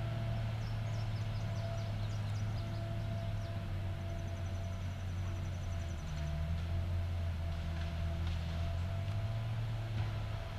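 Cat 573C feller buncher's diesel engine running steadily under load; its note drops about six seconds in and comes back up near the end, with a faint steady whine coming and going above it. Birds chirp faintly in the first few seconds.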